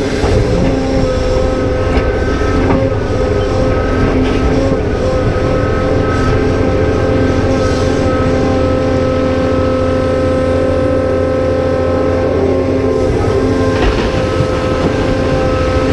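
Caterpillar 390F excavator's diesel engine working under load, with its hydraulic pump and valves whining steadily as the levers are worked. A few short knocks are heard along the way.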